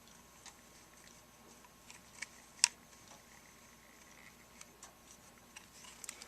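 Faint, scattered clicks and taps from a plastic cordless screwdriver being handled, with one sharper click about two and a half seconds in.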